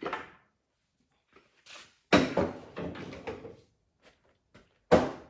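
Knocks and a rattling clatter of heavy metal TH400 transmission parts being handled and set down: one knock at the start, a longer clatter of several strikes about two seconds in, and one sharp knock near the end.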